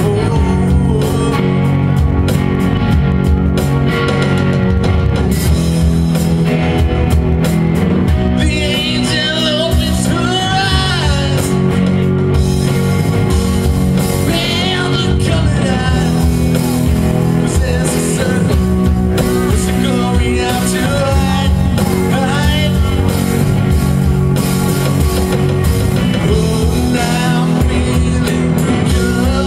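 Live rock band playing with electric guitars, bass and drum kit, a man singing lead over it from about eight seconds in.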